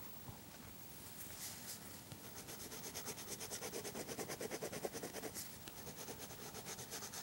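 Colored pencil scribbling on a colouring-book page in quick back-and-forth strokes, several a second. The strokes start about two and a half seconds in and keep up steadily.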